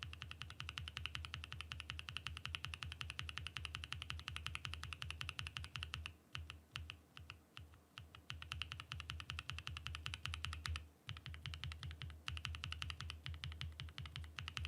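Fast continuous typing on a mechanical keyboard, a dense run of keystrokes with a deep low tone under the clack. There are brief pauses about six, eight and eleven seconds in.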